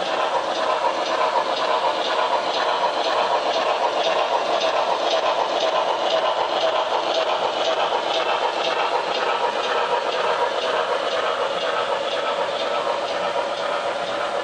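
HO scale Southern Pacific GS-4 steam locomotive's DCC sound decoder playing steady, rhythmic steam chuffing through its small onboard speaker, mixed with the rolling of the passenger cars' wheels on the track as the train passes.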